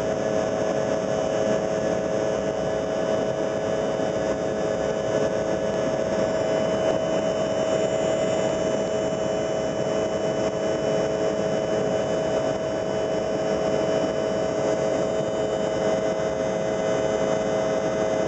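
Steady jet engine and airflow noise inside an airliner cabin while climbing out after takeoff, with a constant humming tone over the rush of air.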